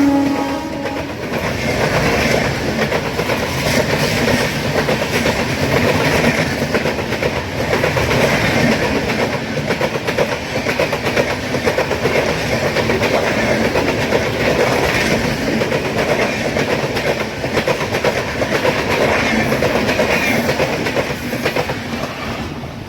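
An Indian Railways passenger train passing at speed, its wheels clattering over the rail joints in a loud, steady rush. The last of its horn drops in pitch and dies away in the first half-second, and the noise fades slightly near the end as the train draws away.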